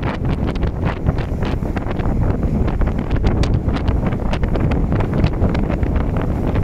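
Strong gale-force wind, over 30 knots, buffeting the microphone: a heavy, steady low rumble with frequent short crackles throughout.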